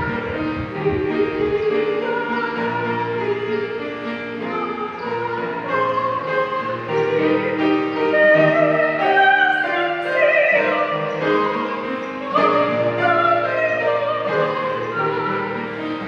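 A woman soloist singing a melody with long held notes.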